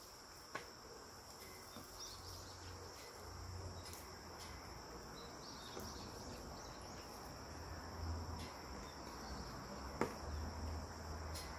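Insects trilling steadily at a high pitch, with a low rumble that comes and goes and a faint click about half a second in and another about ten seconds in.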